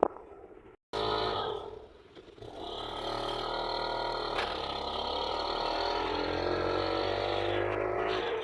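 A vehicle engine running under way, its pitch dipping briefly and then climbing slowly and steadily as it accelerates. A brief dead silence comes just before it starts.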